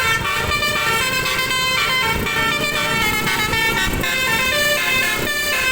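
Bus telolet horn, a multi-tone musical air horn, sounding several notes at once and stepping through a tune, over the low rumble of a vehicle.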